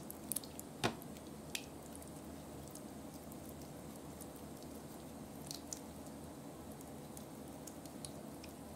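Soft, wet slime being stretched and squeezed in the hands: faint squishing with a few sharp sticky pops and clicks, the loudest just under a second in.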